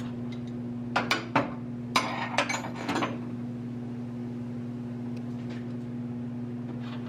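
Steel hand tools and suspension hardware clinking and clanking, a quick cluster of sharp metallic knocks about one to three seconds in, over a steady low hum.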